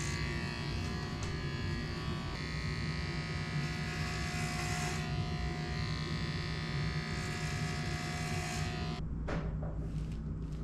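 Corded electric hair clippers buzzing steadily as they cut a man's hair. About nine seconds in, the higher part of the buzz cuts off abruptly and a lower hum remains.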